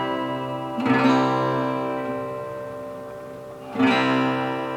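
Guitar tuned to a low open C tuning (C A C G C E) playing a C chord. The chord is struck about a second in and again near the end, and each time it is left to ring and slowly fade.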